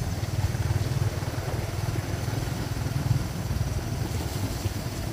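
Motorbike engine running steadily on the move, a low pulsing rumble.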